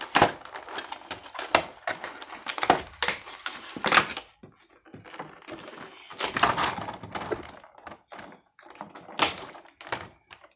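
Packaging of a boxed model airplane being handled and opened: irregular crinkling, rustling and sharp clicks, with brief pauses around four and eight seconds in.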